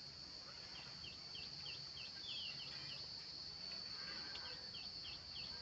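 Outdoor insect drone, steady and high-pitched, with a bird repeating short, falling chirps about four times a second in two runs with a brief gap between them.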